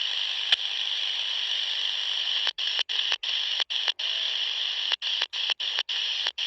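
Walkie-talkie receiving the 27 MHz CB band with the squelch held open: steady radio static hiss through its small speaker, with no station coming through. A click comes about half a second in, and from about two and a half seconds in the hiss cuts out briefly again and again.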